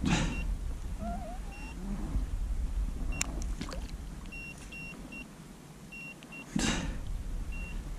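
A hooked zander splashing at the surface of the lake while being played on the rod, with splashes at the start and about two-thirds of the way through, over a low rumble. A few short high beeps sound in the middle.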